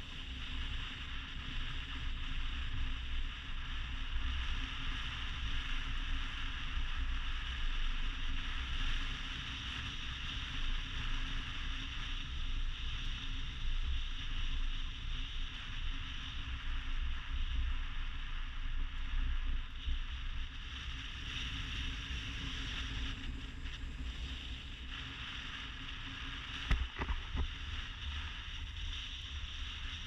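Vehicle driving up a gravel road: steady engine and tyre rumble with road hiss, and a single short knock near the end as it jolts over the surface.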